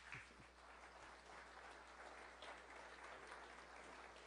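Faint applause from an audience, setting in within the first second and continuing steadily.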